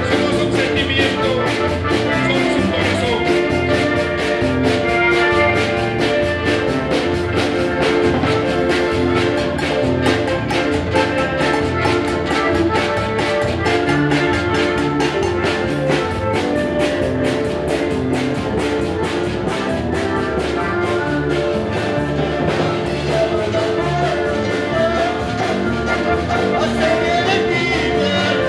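Live band music on accordion, acoustic guitar and drum kit: the accordion's held chords over a steady, even drum beat.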